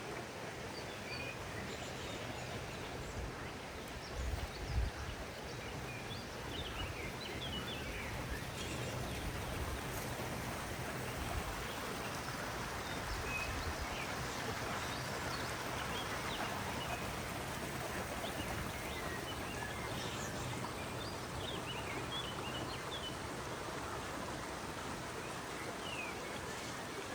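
Stream running steadily, with small birds chirping in short calls throughout. A brief low thump about five seconds in is the loudest moment.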